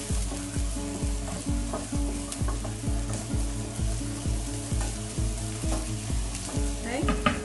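Onions and garlic sizzling in oil in an electric skillet as a wooden spoon stirs and scrapes them. Background music with a steady beat plays underneath.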